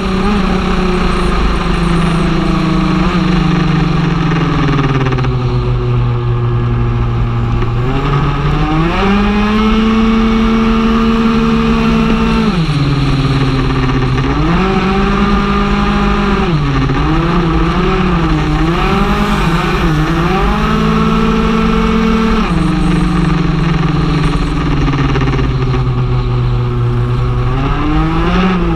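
Stage6 R/T big-bore Zip two-stroke scooter engine at full race pace, heard from onboard. Its note sinks slowly over several seconds and then climbs sharply again, over and over, as the scooter slows into corners and accelerates out.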